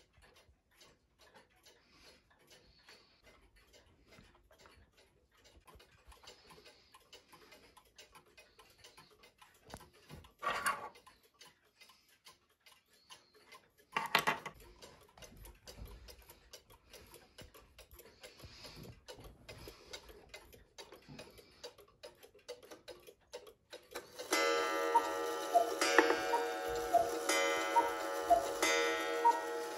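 Several mechanical clocks ticking, their ticks overlapping in a quiet room, with two brief louder sounds about ten and fourteen seconds in. From about 24 seconds a much louder sound of several held tones, with short changing notes and a regular beat over them, joins the ticking.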